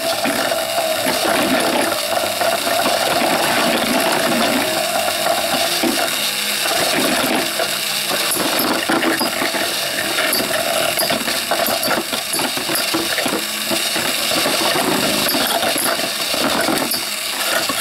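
Two Synchrome Beyblades, Griffin Dragoon SA165WSF and Golem Behemoth F230TB, whirring and scraping as they spin across a plastic Tornado Bey-Stadium floor, with sharp clacks scattered throughout as they strike each other. A pitched hum runs through the first few seconds.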